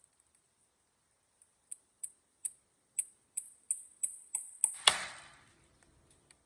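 A series of small, sharp clicks or taps that come faster and louder, ending in one louder hit that rings and dies away over about a second.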